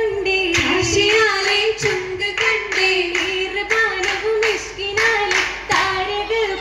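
Oppana troupe singing an oppanappattu (Mappila song) to a steady beat of hand claps, about three claps a second.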